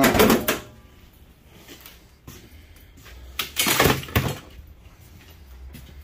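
Small scrap electric motors set down on a sheet-metal table: a metallic clatter with brief ringing at the start, then another run of clanks about three and a half seconds in.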